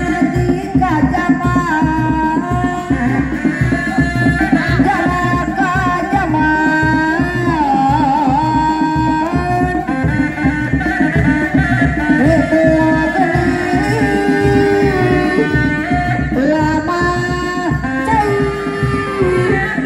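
Sundanese Seni Reak ensemble playing: dog-dog drums beat a fast, dense rhythm under a tarompet shawm carrying a held melody that steps between long notes with wavering ornaments.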